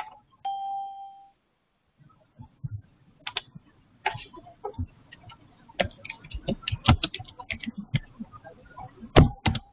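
Typing on a computer keyboard: irregular key clicks from about two seconds in, coming faster after about six seconds. A short steady electronic beep sounds about half a second in.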